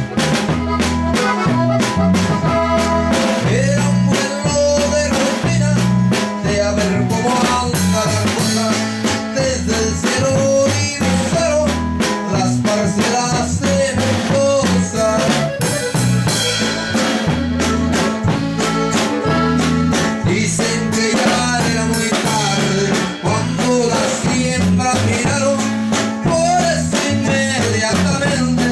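Norteño-style band playing an instrumental passage: button accordion carrying the melody over acoustic guitar, electric bass and drums.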